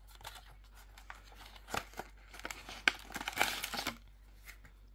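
Cardboard box and a clear plastic sleeve rustling and crinkling as a child-safe knife is slid out of its packaging, with scattered small clicks. The loudest rustle comes about three and a half seconds in.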